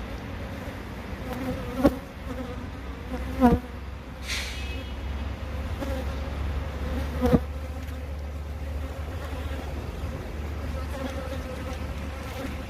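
Korean native honeybees (Asian honeybees) buzzing at the hive entrance: a steady low hum, with single bees flying close past the microphone about three times, briefly louder. It is busy foraging traffic bringing pollen into the hive, which the keeper takes for a sign that the colony is rearing brood.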